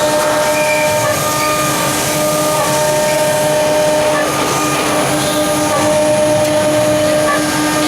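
A CNC router's 9 kW HQD spindle running at a steady high whine while cutting, with shorter whines from the axis motors that come and go as the machine moves.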